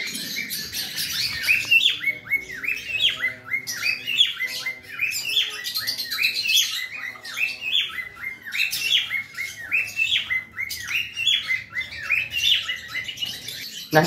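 A flock of caged cockatiels chirping and calling without a break, a quick run of short rising-and-falling chirps.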